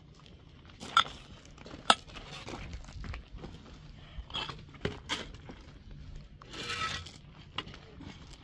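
Objects being handled: irregular knocks and clinks, two sharp ones about a second and two seconds in, and a short scraping rustle near the end.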